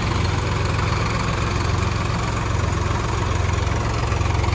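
Tractor diesel engine running steadily with an even, low rumble.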